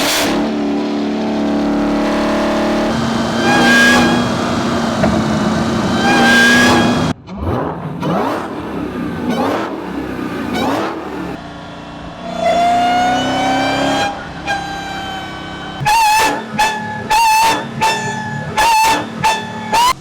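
Dodge Challenger SRT's V8 revving hard in a string of separate bursts, the engine note climbing and falling several times. It cuts off sharply about seven seconds in, and near the end gives about six quick, sharp throttle blips in a row.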